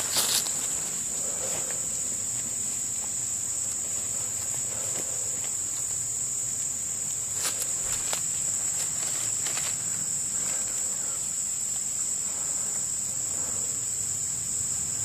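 Steady high-pitched chorus of insects ringing through the summer woods. Faint distant calls come a few times beneath it, the unidentified hollering the man keeps hearing. There are brief rustles and footsteps around the middle as the camera moves.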